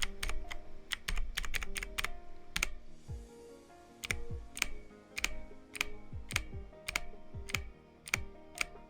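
Keys of an E-YOOSO Z686 mechanical keyboard with blue switches clicking as they are pressed one after another. The clicks come close together in the first three seconds, then spaced out to about one or two a second.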